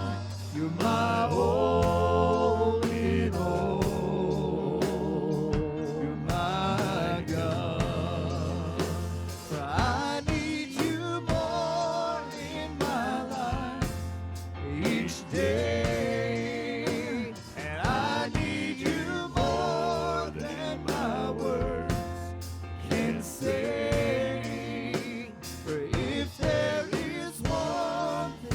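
Worship music: a slow gospel-style praise song with singers over a band, sustained vocal lines with vibrato above a steady bass.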